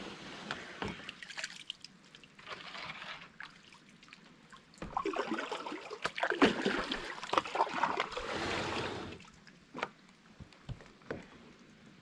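Kayak paddle strokes: water swishing and trickling off the paddle blade in surges, the longest and loudest a little past the middle. It goes quieter near the end, with a few light clicks.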